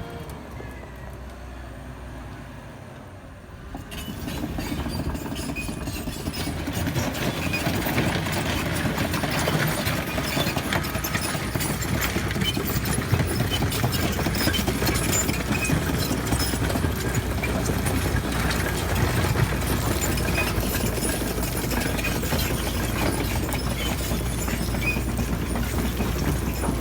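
Cat 906H2 compact wheel loader's diesel engine running at work, quieter at first and then getting louder about four seconds in, with scattered knocks and clatters over it.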